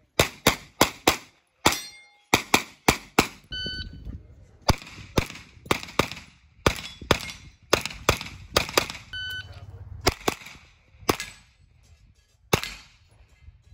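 Rapid pistol-caliber carbine gunfire: about two dozen shots in fast pairs and strings, with short pauses between strings. There are two short metallic pings among the shots.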